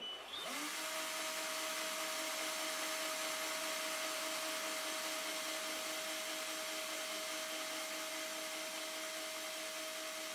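Small electric motor turning a fishing rod blank while thread is wound on for a whipping. It spins up about half a second in, rising in pitch, then runs with a steady whine.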